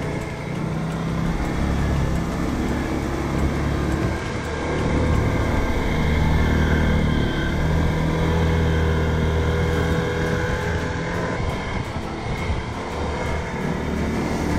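Can-Am 650 ATV's V-twin engine running under throttle while riding a muddy forest trail, its pitch shifting and growing louder through the middle.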